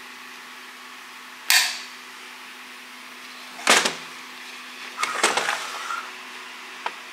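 Sharp metallic knocks and clinks as an aluminium Jaguar V8 cylinder head and small parts are handled on a steel workbench: one knock about a second and a half in, another near four seconds, a short rattling clatter with a brief ring around five to six seconds, and a light click near the end. A steady low workshop hum runs underneath.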